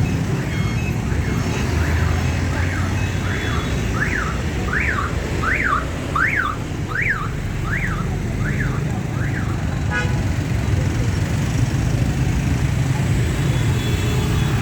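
Electronic warbling alarm sweeping up and down in pitch about once every 0.7 seconds, growing louder and then fading away after about nine seconds, over a steady low rumble of engines.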